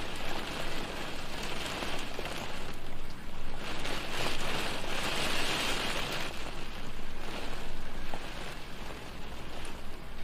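Rain falling on a window pane: a steady hiss of rain with scattered small drop ticks, swelling a little louder midway and easing again.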